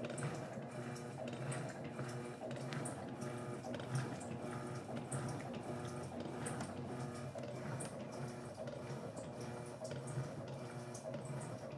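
Electrolux LT12F washing machine agitating a load of floor cloths in sudsy water: a steady motor hum under repeated sloshing and splashing of water.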